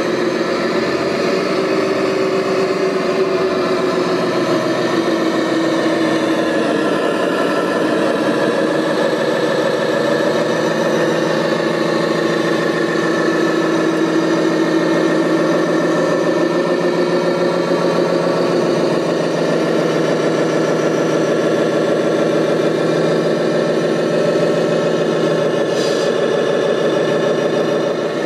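Engine idling steadily with an even, pulsing beat, typical of the diesel-style running sound of RC construction models. There is one brief tick near the end.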